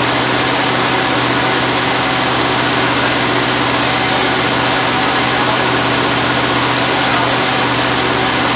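Freshly rebuilt Avenger engine running steadily on a test stand at a constant speed, with no revving. Loud throughout.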